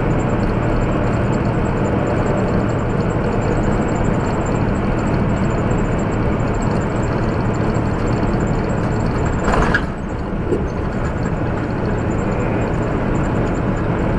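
Steady drone of a semi-truck's engine and road noise inside the cab at highway speed. A short sharp click comes near the ten-second mark, and the drone is slightly quieter after it.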